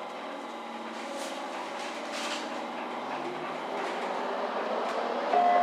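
Hamburg Hochbahn DT3-E U-Bahn train heard from on board as it gets under way, its motor and wheel-on-rail running noise growing gradually louder. A steady tone comes in near the end.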